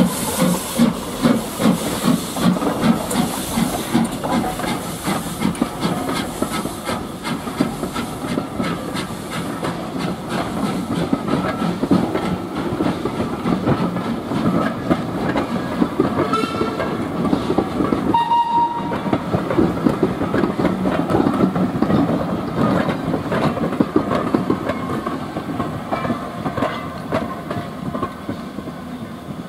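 LSWR Adams O2 0-4-4 tank engine No. 24 Calbourne working past with a train of bogie coaches: steam exhaust beats and hiss as the locomotive goes by, then the rhythmic clickety-clack of the coach wheels over the rail joints as the train draws away. A short high tone sounds briefly about two-thirds of the way through, and the clatter fades a little near the end.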